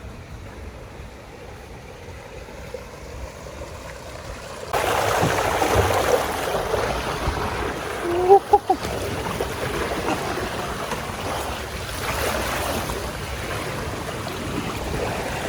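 Sea water splashing and washing with wind noise, growing abruptly louder about five seconds in and then swelling and easing. A brief pitched call cuts through about eight seconds in.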